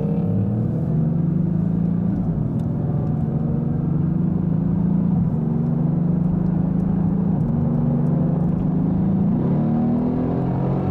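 Mercedes-AMG GT S twin-turbo V8 engine running at a steady drone with small shifts in pitch, over road and tyre noise, heard from inside the cabin.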